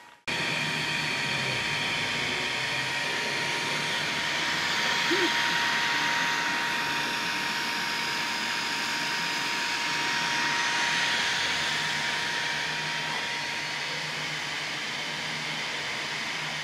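3D printer running a print: a steady whir of its fans and motors with a faint steady whine.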